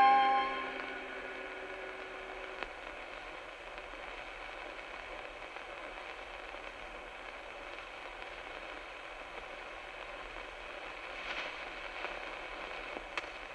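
The last held notes of the song die away in the first second or two, leaving a steady crackling hiss of old-film or record-style surface noise with a few scattered clicks.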